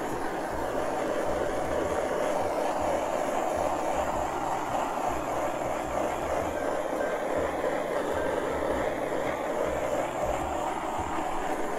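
Handheld butane torch flame hissing steadily as it is swept over freshly poured epoxy resin to pop surface bubbles.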